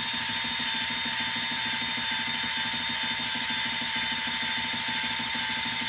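Cordless drill spinning a cylinder hone inside an engine cylinder, running steadily with a whine over a fast rhythmic chatter. The hone is deglazing the cylinder wall and cutting a crosshatch so new piston rings will seat.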